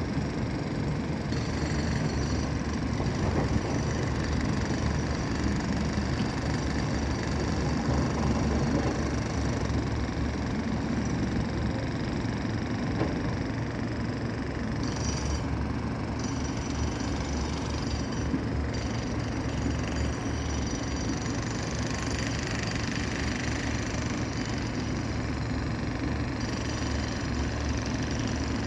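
Diesel engines of heavy construction machinery, such as excavators, running steadily with a low rumble, with a few faint knocks of work on debris.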